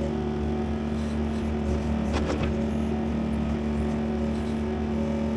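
Excavator's diesel engine running steadily, with a brief clatter about two seconds in.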